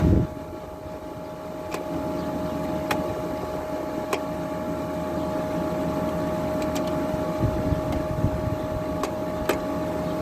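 Frigidaire 12,000 BTU window air conditioner running, its LG rotary compressor and fan giving a steady drone with a steady whine on top and a few light ticks; the owner calls these LG compressors really noisy, typically that noisy. A brief low thump right at the start.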